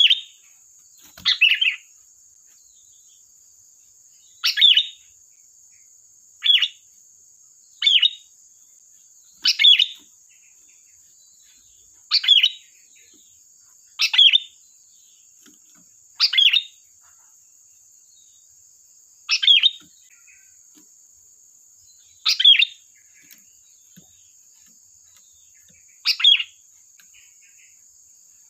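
Sooty-headed bulbul (kutilang) giving short, sharp calls, about a dozen of them spaced a couple of seconds apart, each dropping quickly in pitch.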